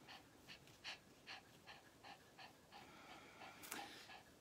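Small dog panting faintly with its tongue out, quick short breaths at roughly two to three a second.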